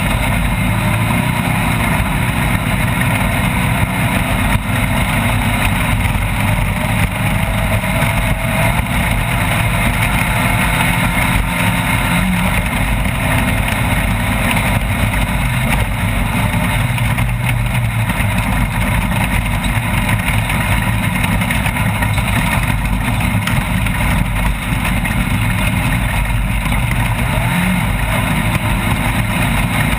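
Off-road race vehicle's engine running steadily and loud, its pitch wavering slightly, mixed with dense, even driving noise.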